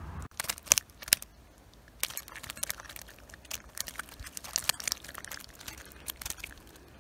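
Irregular close crackling and rustling: a string of sharp clicks and crinkles, the loudest few about a second in, then smaller ones scattered throughout.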